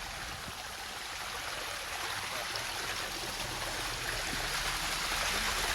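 Water of a small waterfall and stream splashing steadily over rocks, a continuous rushing hiss that grows gradually louder.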